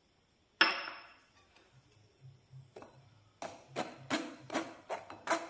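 A sharp metal clink about half a second in, ringing briefly, then a metal spoon rubbing besan through a stainless-steel mesh sieve in quick repeated scraping strokes, about three a second, from about three and a half seconds in.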